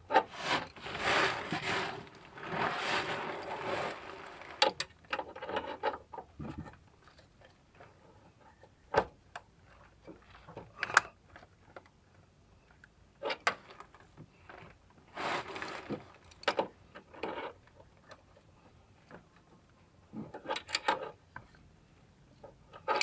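Intermittent metallic clicks and clattering of hand tools and bolts being handled while a clutch-puller tool is fitted to an A/C compressor clutch plate. Short bursts of rattling are separated by single sharp clicks and quieter gaps.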